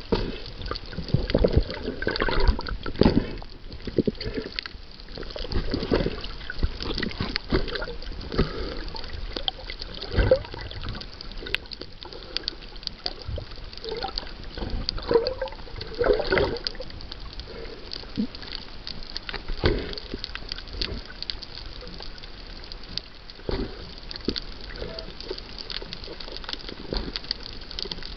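Underwater sound picked up by a submerged camera: water sloshing and gurgling, broken by frequent dull thumps and swishes.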